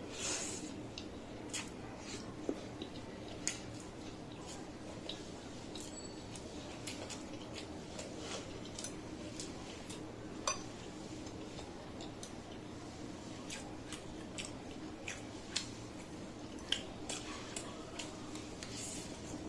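Close-miked eating: scattered sharp clicks of chewing and of dishes being handled, some louder than others, over a steady low hum.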